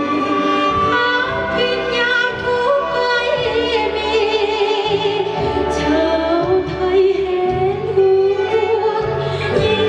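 Music accompanying a Thai cultural dance: a woman's voice sings a slow, sustained melody with vibrato over instrumental backing with changing bass notes.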